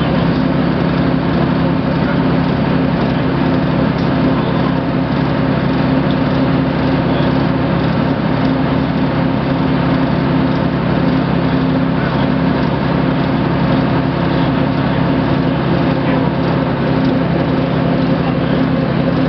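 Ikarus-Zemun IK160P bus's diesel engine running at a steady cruise, heard from inside the bus with road noise: a constant low hum that holds one pitch.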